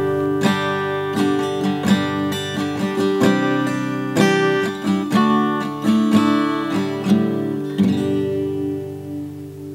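Outro music: acoustic guitar strumming and plucking chords, which ring on and fade out over the last couple of seconds.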